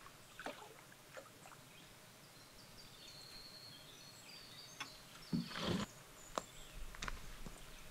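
Canoe being paddled in to a rock shore: a few light knocks on the hull and a brief louder swish about five and a half seconds in, over quiet lakeside air with a faint high bird whistle.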